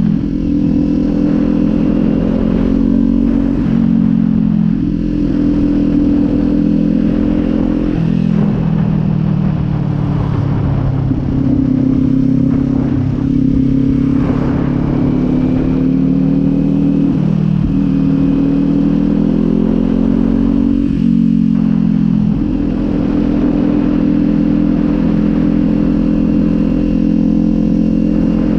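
Kawasaki Z400's 399 cc parallel-twin engine running under way, its note dropping in steps several times as it changes gear and sagging and picking up again around the middle.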